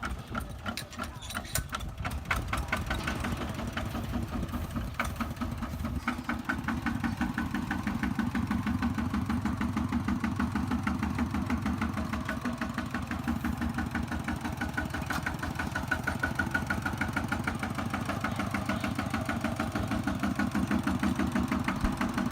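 Kubota tractor diesel engine running steadily with an even, rapid beat, growing louder over the first several seconds and then holding level.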